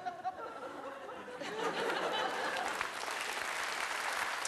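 Audience applause, building up about a second and a half in and then holding steady.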